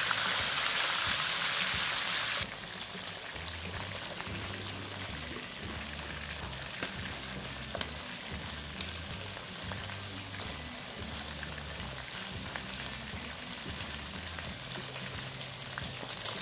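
Whole tilapia shallow-frying in a little hot oil in a non-stick wok, sizzling steadily. The sizzle is loud at first, drops suddenly about two seconds in, then carries on quieter with a few faint pops.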